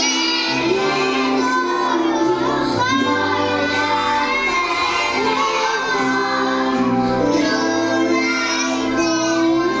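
A group of young children singing a Polish Christmas carol (kolęda) together over instrumental backing music.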